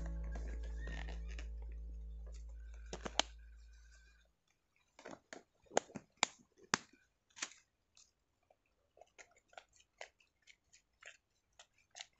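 Background music fading out over the first four seconds, then a string of sharp, irregular clicks and taps from cooking things being handled: a plastic bottle, and a spoon in a plastic mixing bowl of batter.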